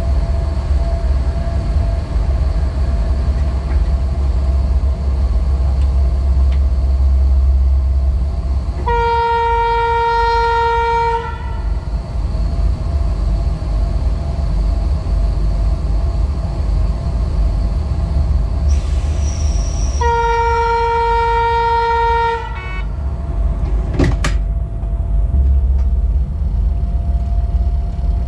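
Rd2 electric locomotive hauling a freight train, with a steady low rumble as it runs. Its horn sounds twice, each a steady two-second note, about ten seconds apart, and a short sharp click follows the second blast.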